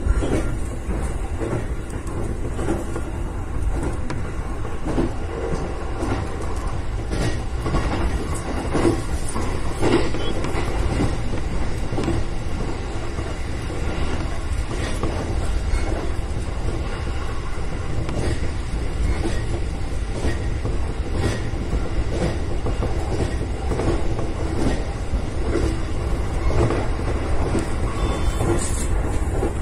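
Electric train running at speed, heard from inside the driver's cab: a steady low rumble broken by irregular knocks as the wheels pass over rail joints.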